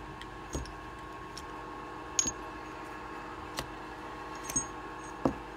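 Small hand tools being handled and set down among a toolbox's contents: about five scattered light clicks and knocks over a faint steady hum.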